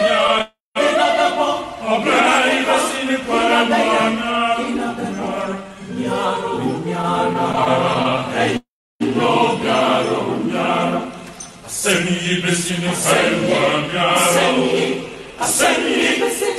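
Voices chanting or singing, cutting out to silence twice, about half a second in and near nine seconds in.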